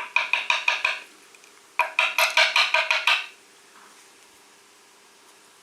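Rapid metallic knocking in two bursts of about eight knocks a second, each knock ringing briefly: a Kwikset KIK lock cylinder housing being rapped to shake loose a spring left in a pin chamber.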